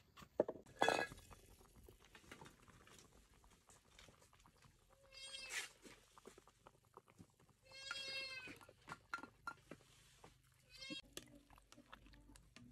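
A couple of sharp knocks just under a second in, then an animal calls three times, each call short and arching in pitch.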